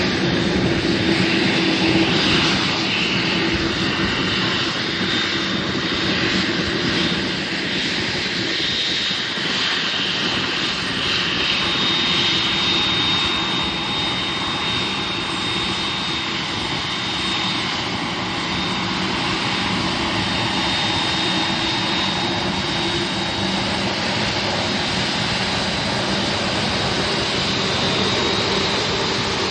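Boeing 747-8's General Electric GEnx-2B jet engines running steadily, a high whine over a broad rushing noise.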